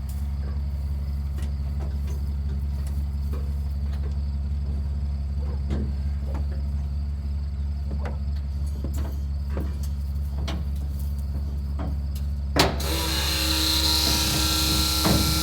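A vehicle engine running steadily with a low drone and faint light clicks. A sharp click comes near the end, after which the sound changes to a brighter hiss with steady tones.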